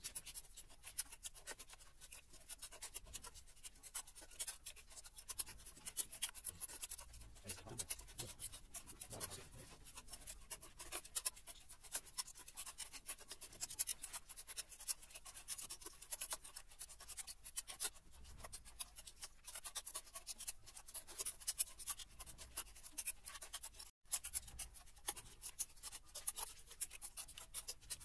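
Hand tools clicking and scraping in quick, irregular ticks as the bolts on a Centurion tank clutch's back plate are done up, drawing the plate down onto the clutch springs.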